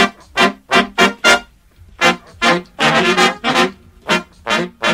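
Upbeat background music made of short, punchy notes, with a brief pause about a second and a half in.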